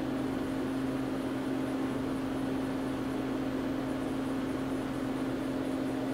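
Okuma Genos L300-MYW-e CNC turning center running: a steady machine hum with one constant tone over an even noise.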